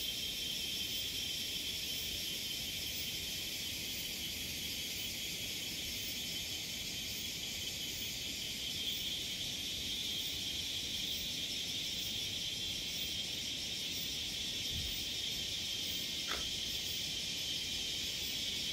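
Steady chorus of forest insects: a continuous high-pitched buzzing drone in several even layers, unchanging throughout.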